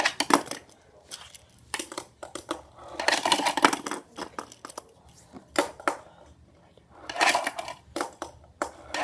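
Tech Deck fingerboard clacking on its plastic ramp and ledges. The board and its wheels make sharp little clicks and clatters in several short bursts as tricks land and slide.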